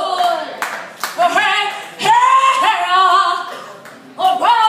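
A woman singing solo and unaccompanied into a microphone, holding long notes that bend in pitch, with two short breaks about two seconds in and near the end.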